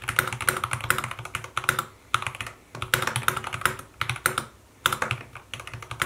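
Fast typing on a custom EclipseTeam EC66 65% mechanical keyboard with linear switches, PBT MDA-profile keycaps and pour-on foam: quick runs of muted key clacks in bursts, broken by a few short pauses.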